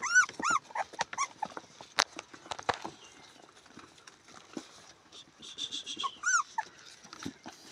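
Puppies whimpering and yipping in short, high-pitched arching cries: a quick run of them at the start and a few more about six seconds in, with light clicks and knocks between.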